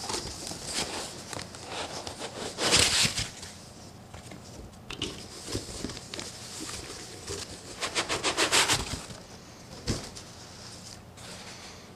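A cardboard shipping box being opened by hand: flaps rustling and scraping as they are folded back, then a white foam packing block scraping against the cardboard as it is pulled out of the box, with a loud run of rapid scrapes about eight seconds in and a single knock shortly after.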